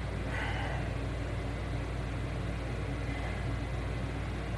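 Steady low mechanical hum of room background noise, with a faint brief higher-pitched sound about half a second in.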